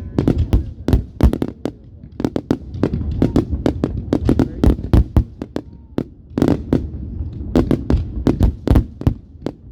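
Fireworks going off in rapid succession: many sharp bangs and pops at an uneven pace, several a second, over a low rumble of echoing booms.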